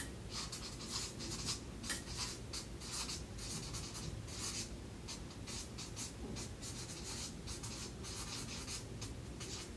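Handwriting: a long run of short, irregular scratchy writing strokes, faint, over a low steady room hum.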